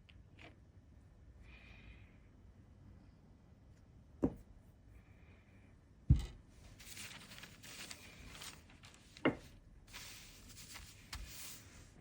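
Three sharp knocks of hard objects set down on a tabletop during seal stamping, with scratchy rustling of paper and tools between the second and third and after them.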